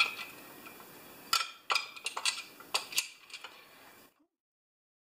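A screwdriver and small metal bolts and parts clicking and tapping against a chainsaw's metal muffler and housing as the muffler is fitted, in a string of sharp, uneven clicks. The sound cuts out to dead silence about four seconds in.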